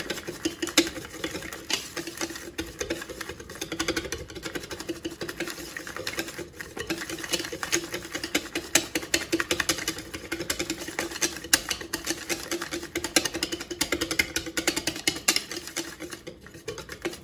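A wire balloon whisk beating egg-and-flour batter in a ceramic mixing bowl: fast, uneven clicking and scraping of the wires against the bowl, with a steady low hum underneath.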